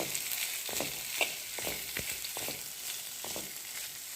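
Boiled horse gram frying in hot oil with its tempering, sizzling with a steady hiss, while being stirred in the pan: short scraping strokes come a few times a second.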